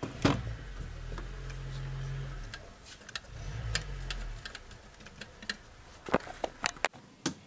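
Small metallic clicks and clinks of cylinder head bolts and tools being handled as the bolts are threaded into the engine block, with a low hum through the first half and a few sharper metal knocks near the end.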